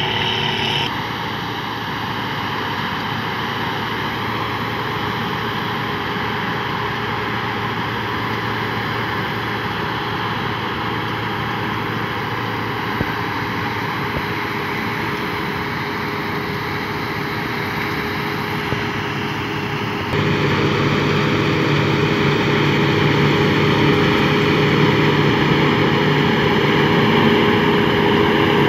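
Sampo Rosenlew 2065 combine harvesters running while harvesting grain: a steady drone of engine and threshing machinery. About twenty seconds in it becomes louder, with a stronger low hum.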